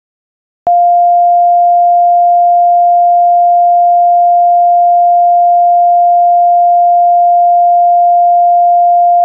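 Emergency alert attention tone: a single loud, steady sine tone that starts abruptly about a second in and holds one pitch without change. It signals that an emergency broadcast message is about to follow.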